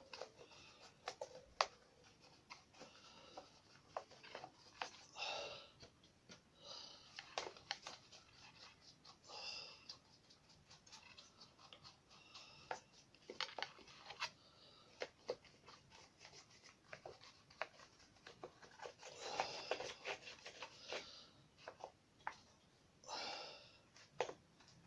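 Faint small clicks, taps and rustles of hand painting at close range, with a few soft breaths now and then.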